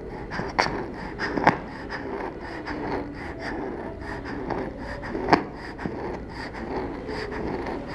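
A young child breathing with a wheeze on breathing out: faint wavering whistling tones, the sign of narrowed lower airways rather than the harsh in-breath sound of stridor. A few sharp clicks sound over the breathing, the loudest about a second and a half in and again about five seconds in.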